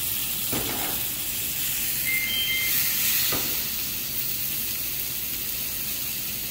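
Food sizzling in a hot frying pan, a steady high-pitched hiss, with a couple of light knocks from dishes or utensils.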